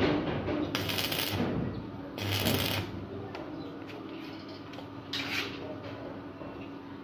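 Stick (arc) welder making short tack welds on steel rod scrollwork: three brief bursts of crackling arc, the first two each well under a second long, the last shorter, about five seconds in.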